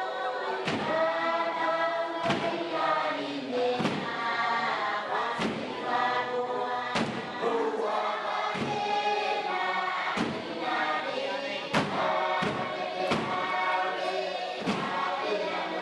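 Background music: a choir singing, with a percussive beat struck about every one and a half seconds.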